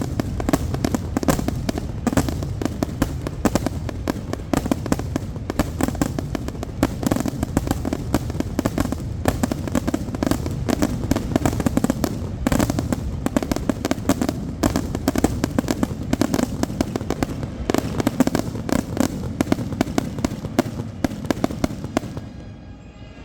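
Fireworks going off in a dense, rapid barrage of overlapping bangs and crackles over a continuous low rumble, stopping abruptly about 22 seconds in.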